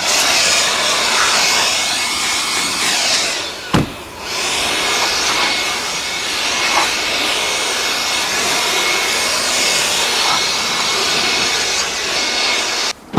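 Steady rush of blown air with a faint steady whine, as from a small electric blower running, cut off briefly about four seconds in and again near the end.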